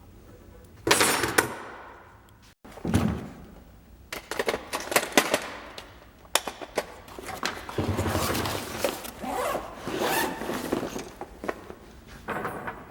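Objects being handled: a series of knocks, scrapes and rustling, with a sharp knock about a second in and a busier stretch of handling from about four seconds on.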